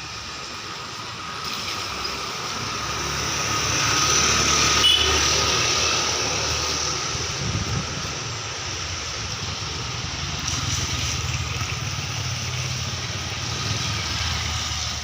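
A motor vehicle passing on a flooded road. A rushing noise swells to its loudest about five seconds in and then eases, and a low engine rumble carries on through the second half.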